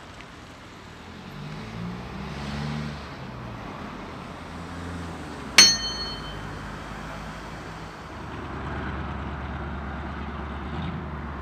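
Car engines in street traffic running and passing. A single sharp, bell-like ding rings out about halfway through.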